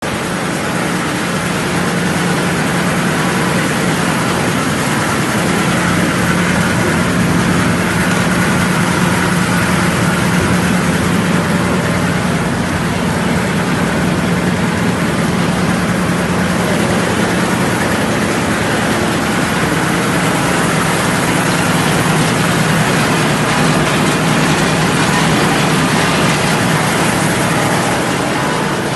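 Peanut chopping machine and its vibrating screen running: a steady machine hum under a constant rushing rattle of chopped peanuts shaking across the screen.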